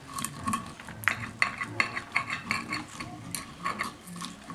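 Knife and fork scraping and clicking against a plate as bacon is cut, in quick, irregular strokes.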